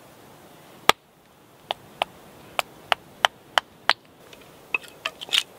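Wooden mallet knocking on the spine of a knife, batoning it through a small wooden offcut to trim it down to size. One sharp knock about a second in, then a run of seven knocks at about three a second, with fainter taps near the end.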